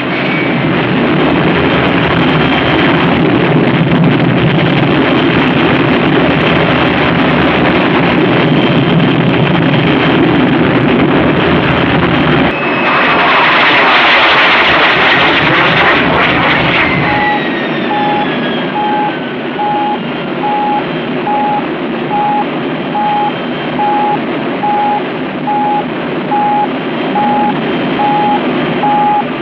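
Film sound effect of rocket engines running with a loud, steady rumbling rush. About halfway through it turns to a brighter hiss with a falling whistle, and then a steady beeping about once a second begins.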